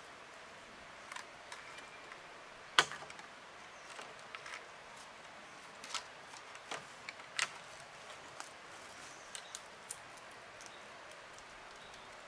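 Scattered light clicks and knocks of handwork with tools and materials, the loudest a single sharp knock about three seconds in, over a faint steady background hiss.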